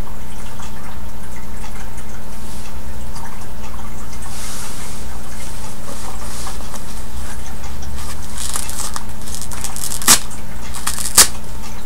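Soft rustling of cloth and a disposable diaper being handled, over a steady electrical hum. Two short, sharp snaps, about ten and eleven seconds in, stand out as the loudest sounds.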